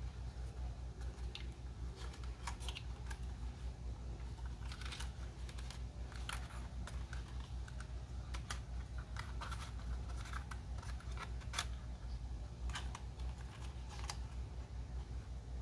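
Hands handling the packaging and parts of a drone unboxing: scattered light clicks, taps and small scratches of plastic and cardboard, over a steady low hum.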